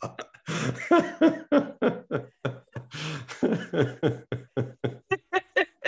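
A man and a woman laughing together, a fast run of short, breathy ha-ha bursts that come quicker near the end.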